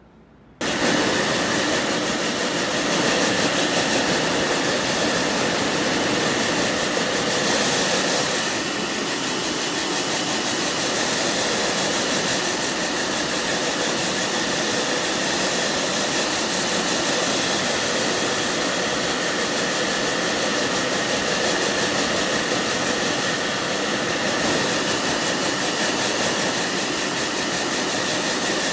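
Hair dryer running steadily, a loud rush of air with a constant whine. It starts abruptly near the beginning.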